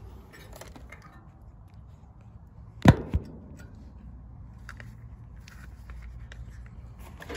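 Tools and items being picked up off the top of an outdoor condenser unit: light clicks and handling knocks, with two sharp knocks close together about three seconds in, the first much louder.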